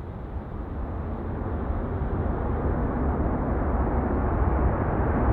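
Jet airliner on landing approach, its engine noise growing steadily louder as it comes closer.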